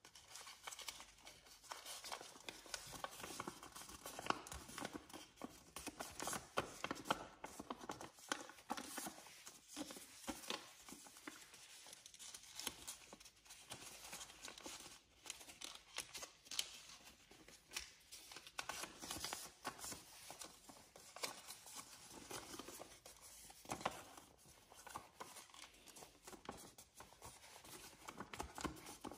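A sheet of paper rustling and crinkling as it is folded and creased by hand, in irregular soft crackles.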